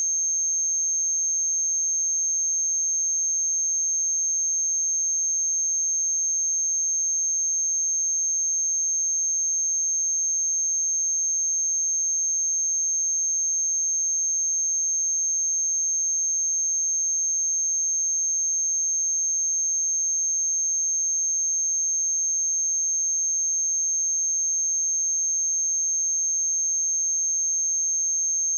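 Pure sine-wave test tone at 6383 Hz, a single steady high-pitched whistle held without change.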